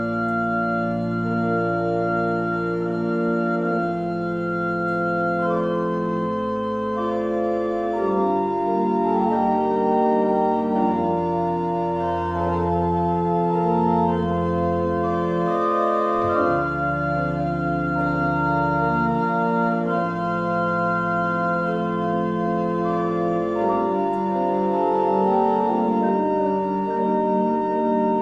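Organ music: slow, sustained chords over held bass notes, with the harmony changing every few seconds.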